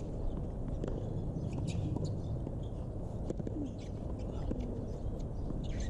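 Outdoor court ambience: a steady low rumble, with birds chirping and calling, and a few faint knocks from tennis racket strikes in the rally.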